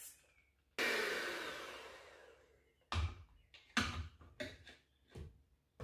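Electric hand mixer whirring in a bowl of batter: it starts suddenly about a second in and fades out over a second or two, followed by a few short knocks.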